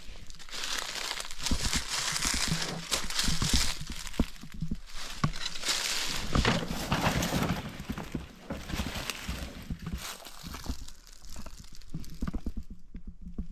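Footsteps crunching and rustling through dry leaves and brush, irregular and continuous, a little quieter in the last couple of seconds.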